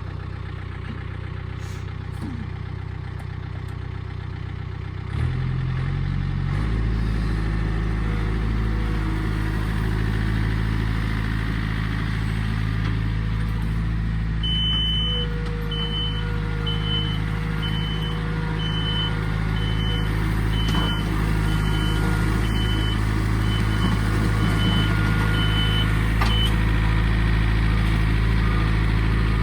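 Tractor engine running steadily, picking up about five seconds in as it is worked to turn around. Midway a high reverse warning beeper sounds about once a second for some twelve seconds while it backs up.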